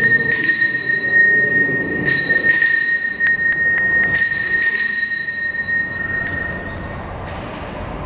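Altar bells rung three times at the elevation of the host after the words of consecration, each ring leaving a long fading tone.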